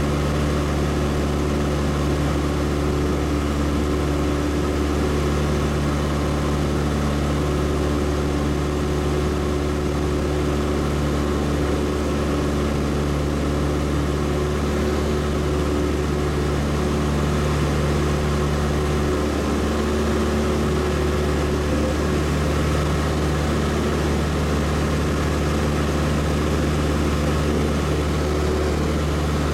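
Light airplane's engine and propeller running steadily in flight, heard from inside the cabin as a constant hum with a few fixed low tones that do not change.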